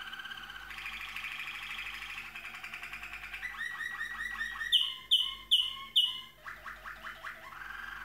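Malinois waterslager canary singing: long rolling trills, broken about five seconds in by four loud, separate falling notes, then a run of quick lower notes before the rolling trill comes back near the end.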